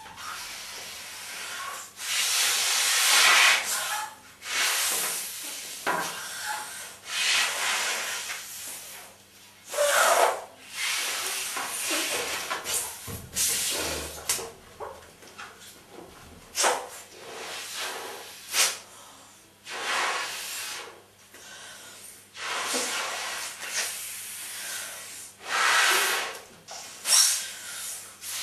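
A large latex balloon being blown up by mouth: breath after breath forced into it, each a hiss of air lasting a second or two, with short gaps for inhaling between them.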